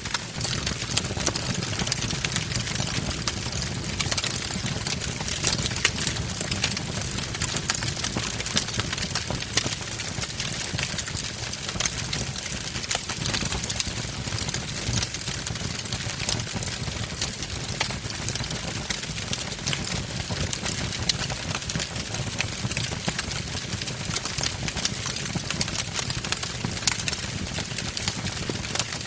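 Wood fire burning in a fireplace: steady crackling with many sharp pops over a low, even rumble of flame.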